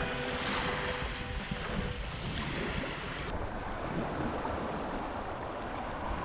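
Small waves washing up on a sandy beach, with wind buffeting the microphone.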